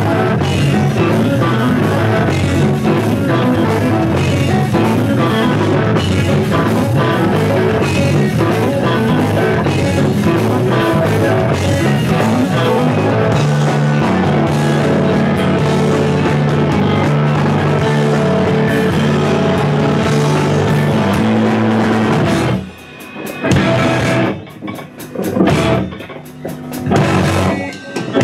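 Live rock band of two electric guitars, electric bass and drum kit playing an instrumental passage loud and full. About 22 seconds in the band breaks into a stop-start section of a few short, sharp hits with gaps between them, then comes back in at full volume just before the end.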